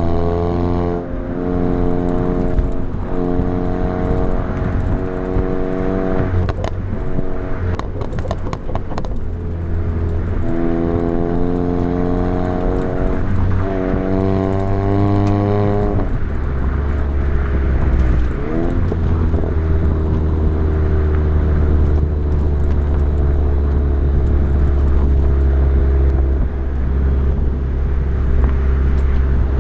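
Volkswagen Mk7 Golf GTI's turbocharged four-cylinder with an aftermarket downpipe exhaust, pulling through the gears: the engine note climbs in a few long pulls with drops at each shift, then settles into a steady low drone at cruise from about halfway. A few short knocks come in the first half.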